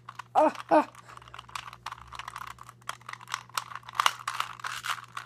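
Shengshou 2x2 speed cube being turned by hand: quick, irregular plastic clicking and clacking of its layers, getting busier near the end.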